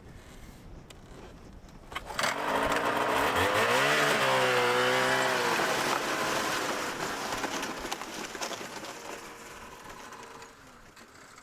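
A vehicle engine starts up loud about two seconds in, rising in pitch as it speeds up, then fades away over several seconds as it drives off.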